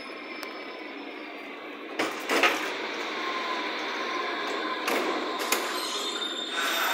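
Berlin U-Bahn HK-series train standing at a station with its sliding doors working. Two sharp clunks come about two seconds in, followed by a faint steady tone and a couple more knocks over the carriage's steady background rumble.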